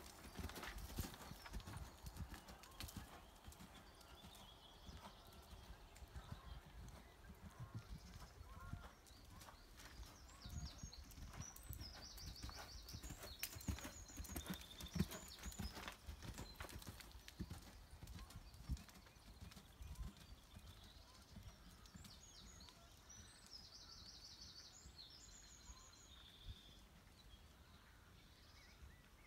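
Horse's hooves striking a sand arena surface, a faint run of soft regular hoofbeats that is clearest in the first half and fades as the horse moves away. High chirping is heard twice in the background.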